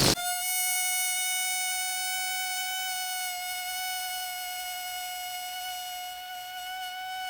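Rubber balloon squealing as air is let out through its stretched neck: one long, steady whine that holds its pitch.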